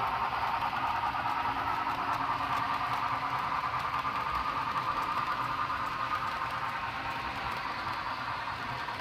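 Model freight train running along the layout track: a steady running hum with faint wheel clicks, slowly fading as the cars pass by.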